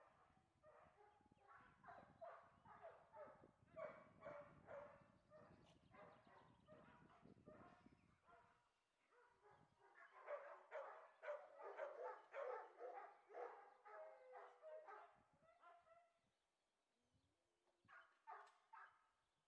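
Faint dog barking: runs of many quick barks, breaking off about halfway, starting again at a fast rate, then a short last burst near the end.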